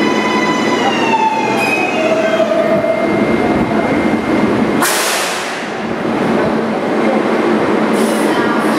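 New York City subway train on the 7 line with a whine of several tones that steps down in pitch twice in the first couple of seconds as it slows, over steady running rumble. About five seconds in comes a sudden loud hiss lasting about a second, and a shorter hiss follows near the end.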